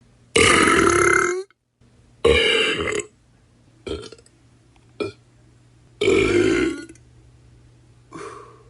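Six human burps in a row, each with a wavering, throaty pitch: two of about a second each, two short ones, one very brief, and a fainter last one near the end.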